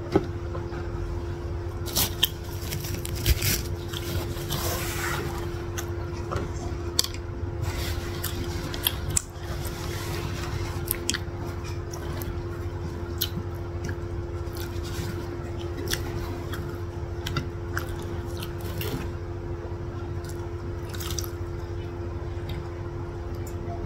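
Close-miked chewing and biting of satay, grilled chicken and beef skewers in peanut sauce, with wet squishing mouth sounds and many sharp clicks, over a steady low hum.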